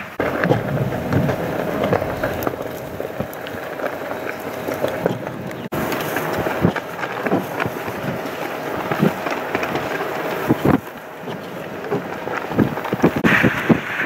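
Blizzard-force wind gusting hard against the microphone, with blowing snow hissing and buffeting thumps. A faint steady hum runs underneath and stops about ten seconds in.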